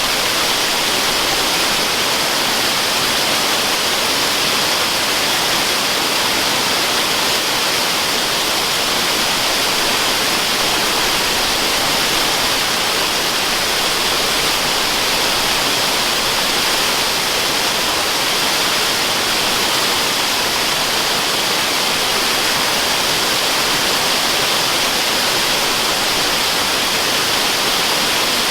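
Waterfall sound used as white noise: a steady, unbroken rush of falling water, bright and hissy, with no change in level.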